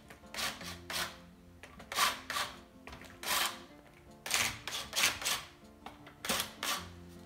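Cordless drill/driver spinning in a dozen or so short bursts as it runs off the nuts holding a car's hubcap, over background music.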